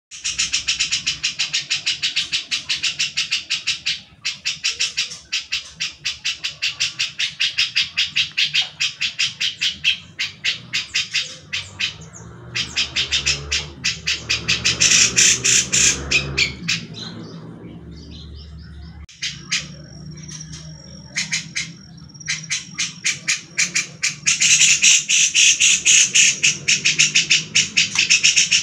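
Grey-cheeked bulbul (cucak jenggot) giving its fast chattering besetan calls: long runs of rapidly repeated high notes, broken by short pauses, with a brief steady high whistle about twenty seconds in.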